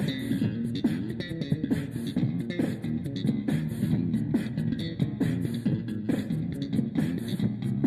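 Background music led by guitar and bass guitar, with a steady beat.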